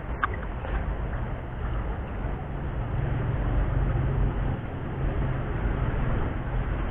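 Low engine hum of a motor running, a steady rumble that grows louder a couple of seconds in and eases off near the end.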